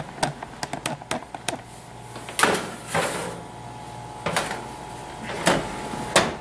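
Metal baking sheet set onto a wire oven rack and pushed in, giving a series of sharp clanks and knocks at uneven intervals, over a steady faint hum.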